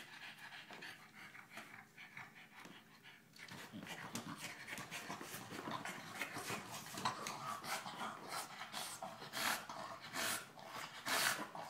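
French bulldog panting hard. About three and a half seconds in the panting gets louder and more ragged as the dog mouths and bites at a giant tennis ball, with the loudest strokes near the end.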